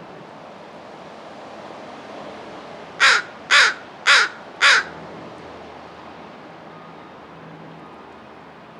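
A crow calling four harsh caws in a quick, evenly spaced series, each short and about half a second apart, a little past the middle.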